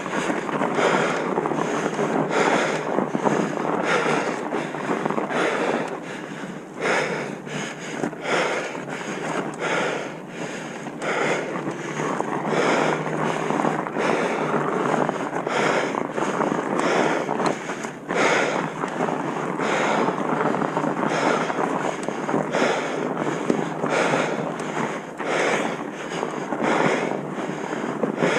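Wind buffeting a moving camera's microphone, an uneven rushing with many short irregular jolts and rattles from rough, bumpy ground.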